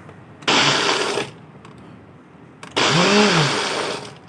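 Ninja blender with a single-serve cup of ice and milk, its motor running in two short bursts of about a second each and stopping between them. The single-serve cup has loosened on the base, so the blender will not run on.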